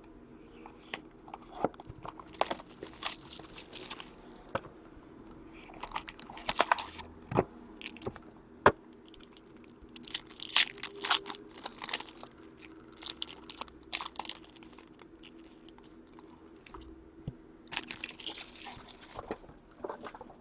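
Plastic wrapping and packaging of a sealed hockey card box being torn, crinkled and handled as the box is opened, in irregular bursts of crackling with scattered clicks.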